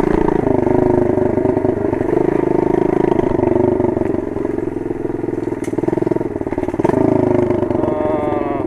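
Small 110cc motorcycle engine running under way on a dirt trail, its revs rising and falling with the throttle and climbing again near the end.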